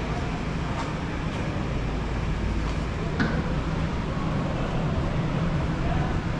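Airport terminal ambience: a steady low hum and rumble, with a few faint clicks and knocks.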